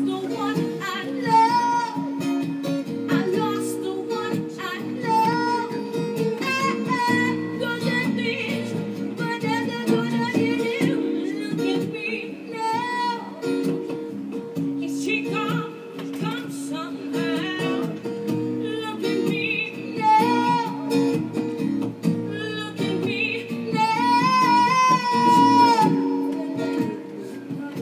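A song played on guitar with a voice singing over it: held chords underneath and a sung melody that rises and falls in phrases.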